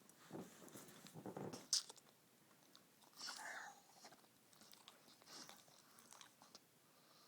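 A sleeping dog snoring faintly: a few short, rough breaths, a sharp click just under two seconds in, and a breathier one about three seconds in.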